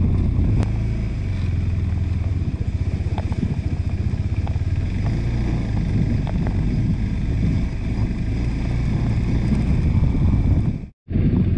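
KTM 390 Adventure's single-cylinder engine running steadily while riding, with a few faint knocks. The sound cuts out for a moment near the end.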